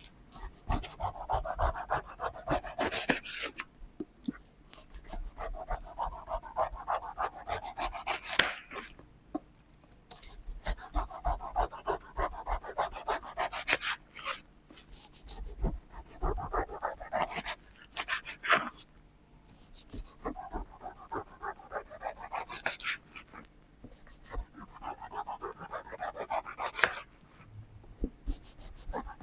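Knife cutting through a pineapple: repeated strokes, each a few seconds of crunching and crackling, with short pauses between them.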